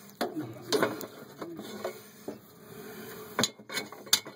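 Metal clanks, knocks and scrapes of a fireplace damper's hardware being worked by hand inside the flue. There are a few sharp knocks about a second in and a cluster more near the end, with rubbing in between.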